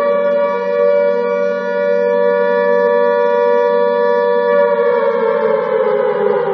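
Alarm siren wailing: a loud held tone that begins to slide down in pitch about three-quarters of the way through.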